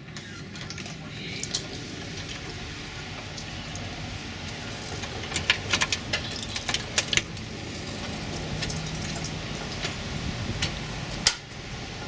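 Steady wind noise, with a cluster of sharp clicks and rattles about halfway through as a screen door is unlatched and opened, and one more sharp click near the end.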